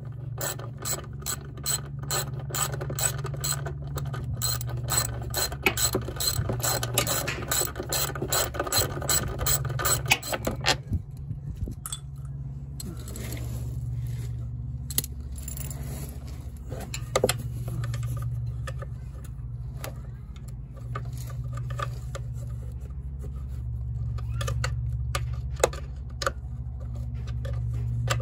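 Hand ratchet wrench clicking in quick, even strokes, about four a second, as bolts under a John Deere Gator's engine are worked loose. The clicking stops about ten seconds in, leaving scattered single clicks and clinks of metal over a steady low hum.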